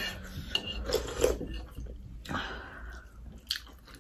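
Eating at the table: soup slurped from a spoon, a hissing sip about two seconds in, amid a few sharp clicks of metal spoons on plates and bowls.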